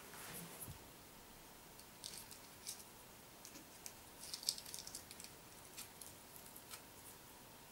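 Faint handling noise of hands working small light craft pieces, a small white ball and a thin round disc: scattered light clicks and crinkles, busiest about halfway through.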